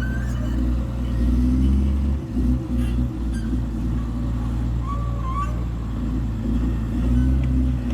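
Wheel loader's diesel engine running with a steady low rumble, dipping briefly a little after two seconds in.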